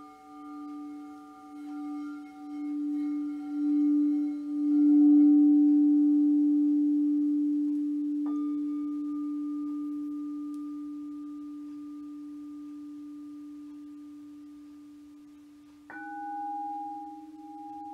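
Singing bowls ringing: a low hum swells in pulses to a peak about five seconds in, then slowly fades. A bowl is struck about eight seconds in and another near the end, each adding a higher ringing tone.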